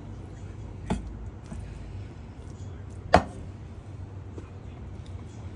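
Two chops of a Chinese cleaver through cooked chicken onto a wooden cutting board, about two seconds apart, the second the louder.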